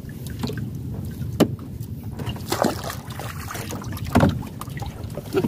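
A wooden stick striking a fish caught in a gill net in the bottom of a small boat, used in place of a mallet: about five knocks at uneven intervals over a steady rush of wind and water.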